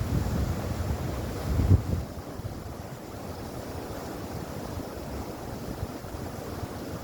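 Mountain stream water rushing steadily, with low gusts of wind buffeting the microphone during the first two seconds, the strongest just under two seconds in.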